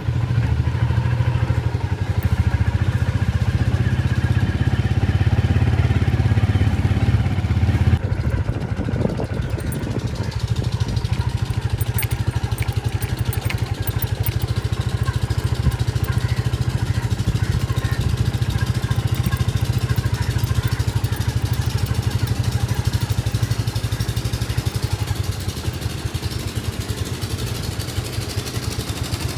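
An engine running steadily at a constant speed, its sound shifting about eight seconds in.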